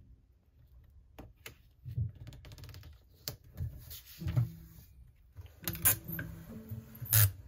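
Paper being handled and pressed flat on a tabletop, with scattered light taps and rustles, then sticky tape pulled from a desk tape dispenser and torn off, the loudest sounds, near the end.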